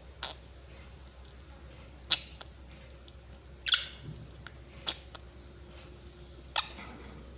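Parrots giving short, sharp chirps, about five of them spaced a second or two apart, the loudest about two seconds in and just under four seconds in.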